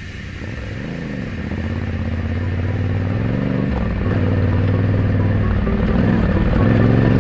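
Enduro motorcycle engine running under way, its pitch rising and dropping back several times as it accelerates and changes gear, growing steadily louder.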